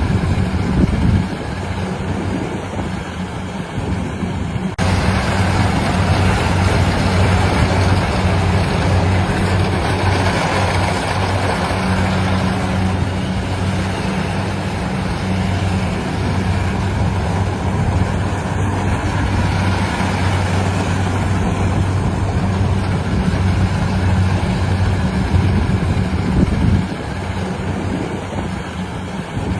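Rice combine harvester's engine running steadily under load, a constant low hum with the clatter and rush of the machinery over it. About five seconds in the upper noise jumps up suddenly.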